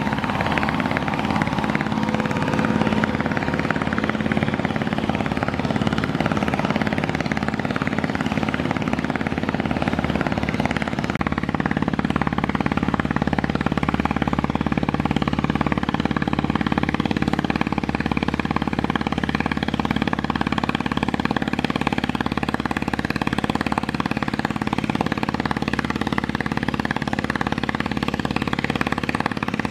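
Steady drone of a river launch's diesel engines under way, its tone shifting slightly about eleven seconds in.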